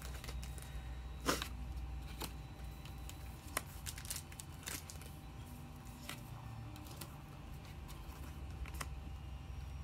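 Trading cards being handled on a play mat: scattered light clicks and rustles as cards are put down and picked up, over a steady low hum.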